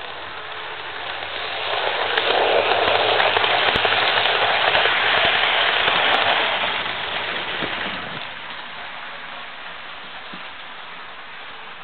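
HO scale model train, a D&H diesel pulling coal hoppers, rolling past close by: a steady rattle of wheels on track and motor hum that swells about two seconds in and fades after about seven seconds.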